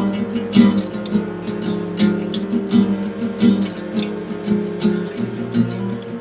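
Music: an acoustic guitar strummed in a steady rhythm of repeated chords.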